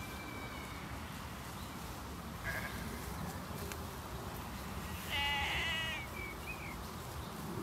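Sheep bleating: one wavering bleat lasting under a second about five seconds in, with a fainter short call a little after two seconds, over a steady outdoor hiss.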